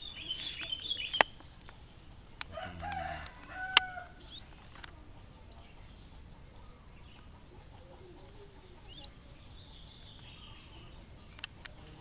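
Birds calling: high cheeping in the first second, a lower chicken-like call around three seconds in, and a short chirp later. Sharp knocks from hands handling a small wooden bird cage come about one and four seconds in and are the loudest sounds.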